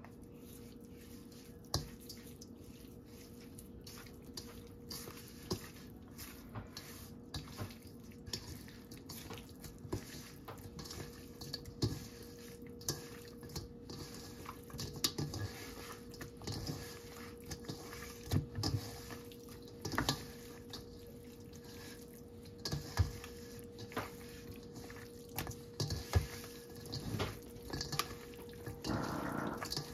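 Wet squishing and scattered small clicks of hands rubbing seasoning into small raw fish in a perforated stainless steel bowl, with a steady low hum underneath.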